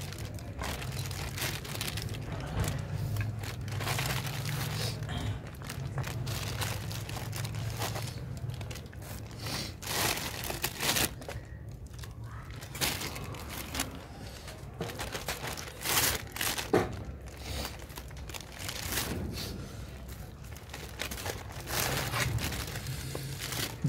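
Plastic bag crinkling and rustling in irregular crackles as raw marinated chicken drumsticks are pulled out of it by hand.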